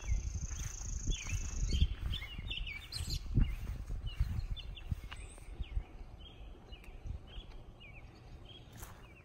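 Songbirds chirping and calling, many short calls overlapping. In the first half, low thumps and rumble on the microphone; a steady high-pitched tone runs for about the first two seconds.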